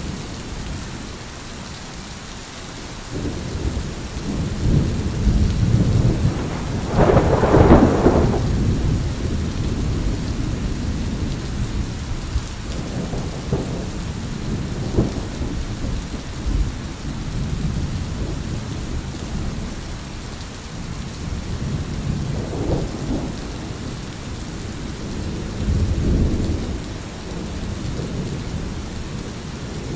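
Thunder rolling and rumbling again and again over a steady hiss of rain. The loudest, sharpest peal builds a few seconds in and peaks about seven seconds in, with several lower rolls following later.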